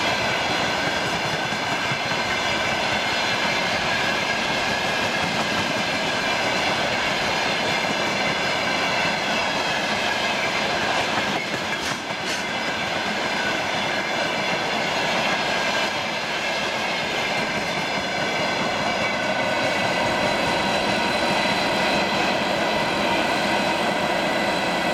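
A freight train of railway tank cars rolls past at speed: a steady rolling noise of steel wheels on rail, with clickety-clack over the rail joints and a steady high whine of several tones from the wheels.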